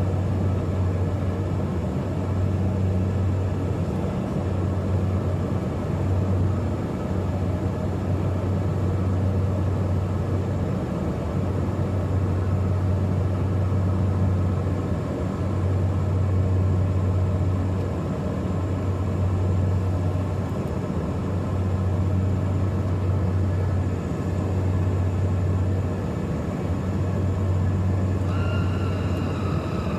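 Cabin drone of a Beechcraft King Air twin turboprop heard from inside: a steady low propeller hum that swells and dips every few seconds, over a constant hiss of airflow. Near the end a higher whine joins in.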